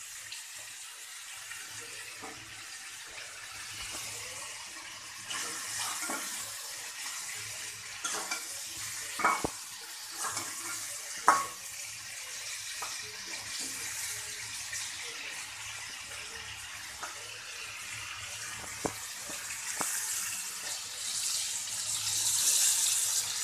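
Snakehead fish pieces frying in oil and spice paste in a metal kadai, a steady sizzle that grows louder near the end, with a metal spatula scraping and giving a few sharp knocks against the pan as the fish is stirred.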